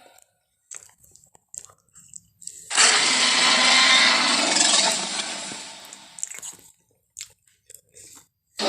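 Tyrannosaurus rex roar sound effect: one loud, harsh roar starting suddenly about three seconds in and fading out over about three seconds. A few faint clicks come before and after it.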